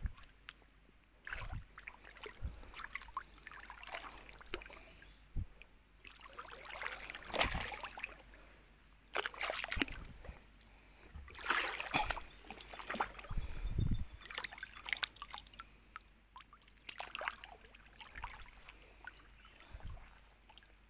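Water sloshing and splashing in a shallow muddy stream, in irregular bursts with quieter gaps between, the loudest in the middle of the stretch.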